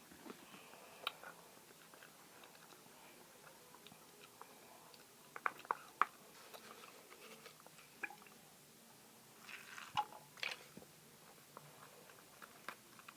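Faint sticky clicks and squelches of glue slime being stirred in a container, coming in scattered clusters: the slime is just starting to activate with contact lens solution.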